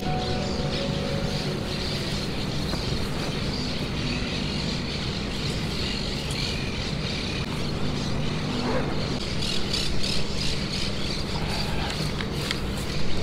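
A motor vehicle running steadily while riding along, its low engine hum under a constant rush of wind and road noise.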